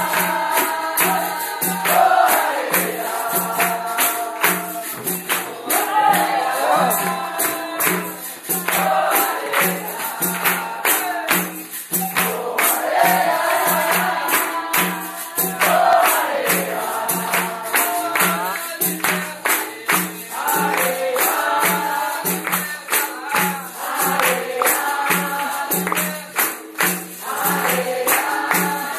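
Capoeira roda music: berimbaus, a tambourine-like pandeiro and a drum keeping a steady beat while a group sings together and claps along.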